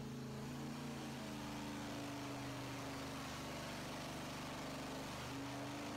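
GM 8.1-litre (496 cubic inch) Gen 7 big-block Chevy V8 idling steadily with its stock intake manifold and throttle body, a low, even engine hum.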